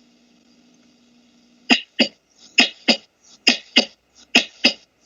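Normal heart sounds on auscultation: four lub-dub beats starting about a second and a half in. Each is the first heart sound (closure of the mitral and tricuspid valves) followed about a third of a second later by the second (closure of the aortic and pulmonary valves), at a steady rate of roughly 65 beats a minute.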